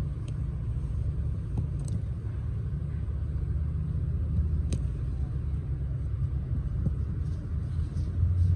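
Steady low outdoor rumble, with a few light taps over it and one sharper tap about halfway through.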